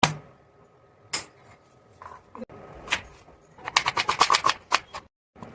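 Thick mutton and coconut gravy bubbling in a pot: scattered sharp pops, then a quick run of about ten pops some three and a half seconds in.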